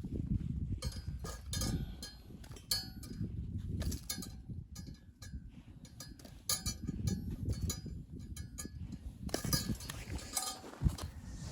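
Repeated clinks and knocks of metal objects, some ringing briefly, over a dense low rumbling noise.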